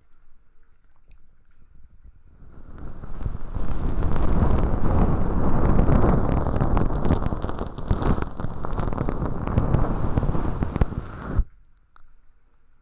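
Ear-cleaning tool scraping thin, crispy sawdust-like flakes inside a binaural microphone's ear canal, heard up close as dense crackling and rustling with many fine crackles. It starts about two and a half seconds in and cuts off suddenly near the end.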